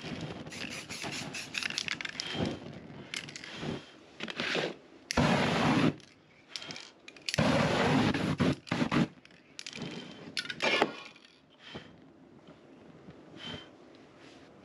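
Aerosol spray paint ignited over the canvas, going up in several rushing whooshes of flame; the two loudest last about a second each, in the middle, with sharp crackles and clicks between them.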